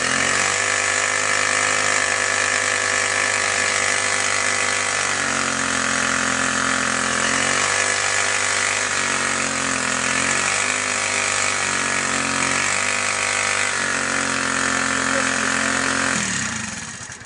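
GEET-modified 49cc bicycle engine running, its pitch dipping and rising several times as it revs up and down, then cutting off near the end.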